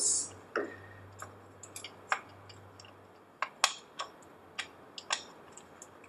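Scattered light clicks and ticks of a Phillips screwdriver working the wire terminal screws on the back of a plastic wall light switch, irregularly spaced.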